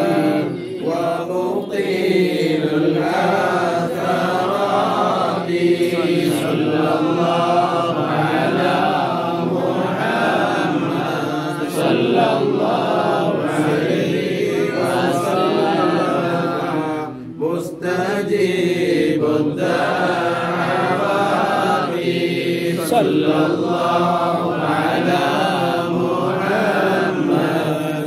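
A group of men chanting Arabic mawlid verses in praise of the Prophet Muhammad, with a brief break about seventeen seconds in.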